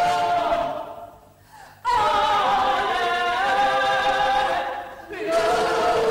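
A group of voices singing a cappella in held, sustained chords. The singing dies away about a second in, enters again sharply at about two seconds, and after a short break near the end starts a new held note.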